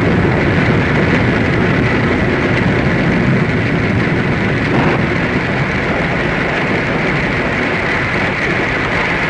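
Radio-drama storm sound effect: a steady, loud rushing of rain and wind that keeps on evenly without breaks.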